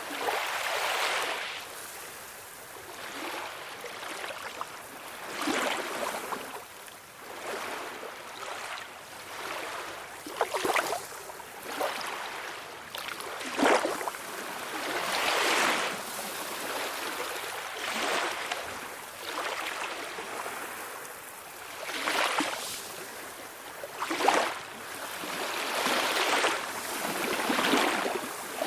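Small sea waves washing ashore, surging and falling back every few seconds. A few of them land with a sharper splash.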